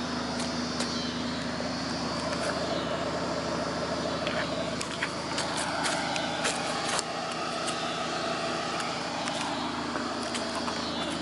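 A steady mechanical hum, with a few light clicks about halfway through.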